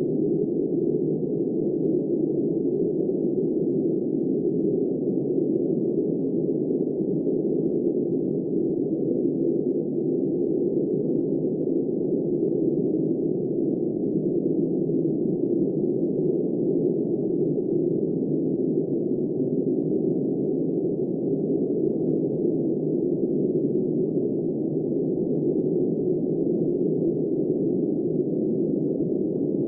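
Steady, muffled blizzard wind with only a low, dull rush and no hiss, unchanging throughout.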